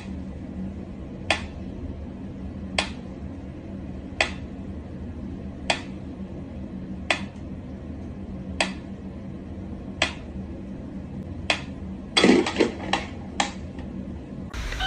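Sharp clicks repeating evenly about every second and a half over a steady low hum, then a quick cluster of louder knocks near the end.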